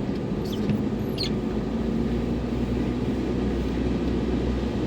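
Steady low rumble of a car's engine and road noise, with a few brief high squeaks about a second in.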